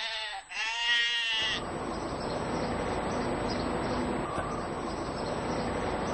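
Grazing flock animals bleating: two long, wavering bleats in the first second and a half, followed by a steady outdoor rushing noise.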